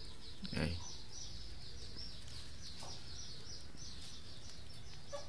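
Steady, high-pitched chirping in a fast even run, several chirps a second, throughout.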